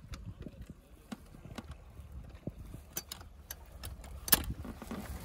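Scattered light clicks and knocks from handling a small outboard motor's tiller on an inflatable boat's transom, with one sharp, louder click about four seconds in, over a low steady rumble. The motor itself is not running.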